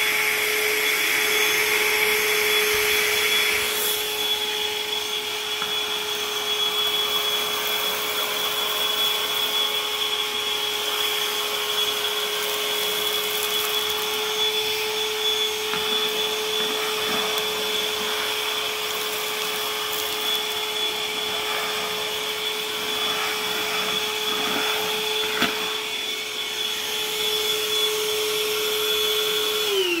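Bosch 18V cordless wet/dry vacuum running with its wands and upholstery tool: a steady motor whine, with a few faint ticks as it picks up bits of debris off a hardwood floor. At the very end it is switched off and the whine starts to fall in pitch.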